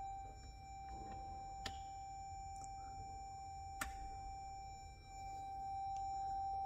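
Toyota Fortuner's warning chime sounding a single steady tone: the alert for headlights left on with the engine not running. Two faint clicks come about two seconds apart.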